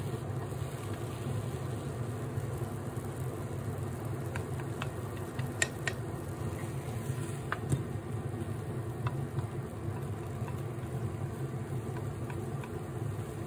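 Steady low hum of a kitchen fan running. Wooden chopsticks click against the rectangular tamagoyaki pan several times in the middle, as the rolled egg is pushed and lifted.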